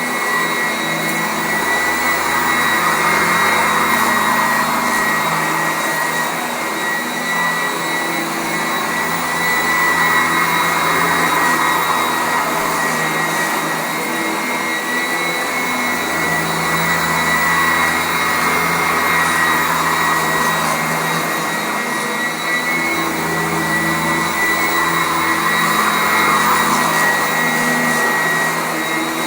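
Sanitaire SC899 commercial upright vacuum cleaner running continuously over carpet, a steady motor hum with a high whine, its level gently swelling and easing every several seconds.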